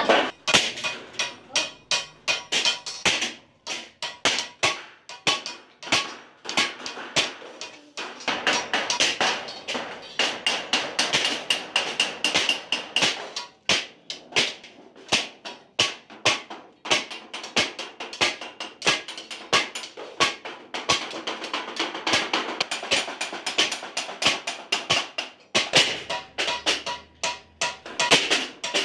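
Hammer striking galvanized sheet metal over and over, sharp metallic taps several a second with a ringing tone, as the folded edges of a sheet-metal tray are beaten down.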